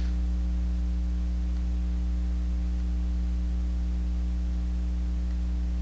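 Steady electrical mains hum: a low, constant buzz with several higher overtones and nothing else over it.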